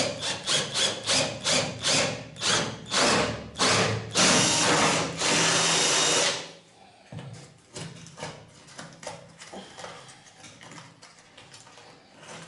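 Cordless drill boring a 35 mm Forstner bit into a chipboard door panel, run in short bursts about three a second, then held on for about two seconds before stopping sharply about six seconds in. Faint knocks and scrapes follow.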